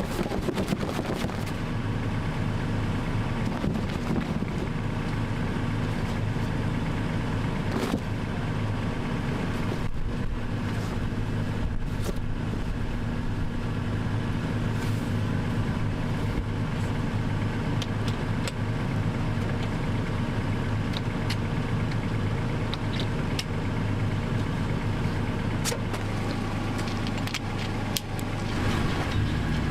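A vehicle driving: a steady low engine and road drone with scattered light clicks and knocks.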